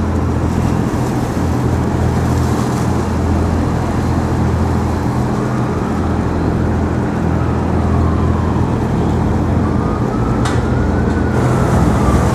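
Steady low engine drone over a wash of outdoor traffic noise, with a faint tone slowly rising and falling in the background in the second half and one short sharp click near the end.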